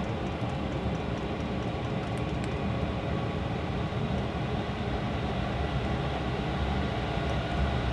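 Portable Chinese diesel air heater running at full output: a steady rushing noise from its fans and burner.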